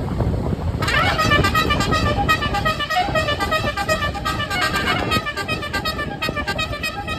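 Basuri telolet multi-tone horn on a tour bus playing a fast tune of short notes that step up and down, starting about a second in, over a low rumble.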